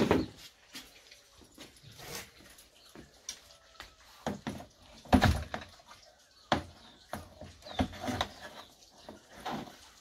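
Snake tongs and a hard plastic storage tub knocking and scraping against each other in a run of separate knocks, the loudest about five seconds in.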